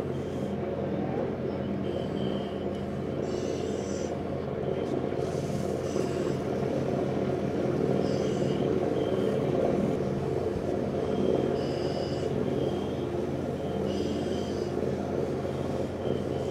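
A large engine running steadily with an even low drone, joined every second or two by short high chirps.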